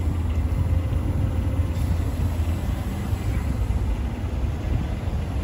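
A motor running with a steady low rumble while a car tyre is inflated from an air hose.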